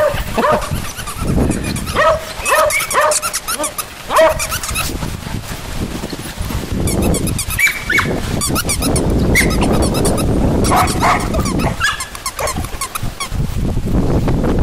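Poodle and cocker spaniel puppies at play, with a run of short, high yips over the first four seconds. From about seven seconds in, scuffling and rustling comes in with a few more yips.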